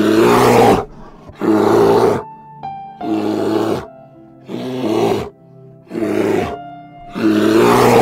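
An animal calling repeatedly, six loud calls each under a second long, about one every second and a half, over background music with held notes.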